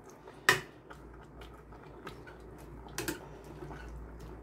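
Metal ladle clinking and scraping against a stainless steel pot while stirring chicken and bell peppers, with a sharp knock about half a second in and another about three seconds in, and light ticks between them.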